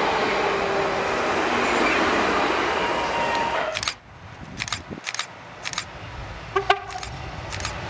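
Electric passenger multiple unit passing close by, a steady wheel-on-rail rumble with faint squealing tones, which cuts off sharply about four seconds in. After that, quieter background with a handful of short, sharp clicks and one brief tone.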